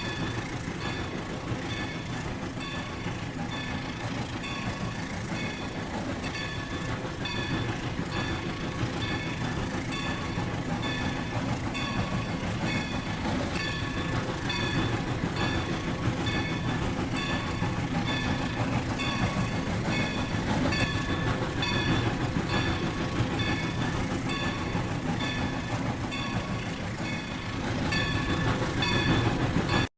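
Rail King toy train running on its track: a steady whirring rumble from its motor and wheels, with a repeating pattern of short, high electronic tones over it.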